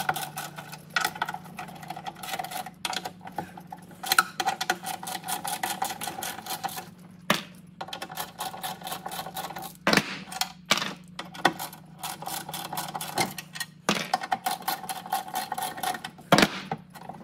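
Socket ratchet wrench clicking rapidly in long runs as bolts are undone, broken by short pauses and a few louder clacks.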